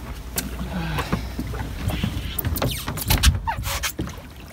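Fishing boat at sea: a steady low rumble with water noise, and a cluster of sharp knocks about three seconds in.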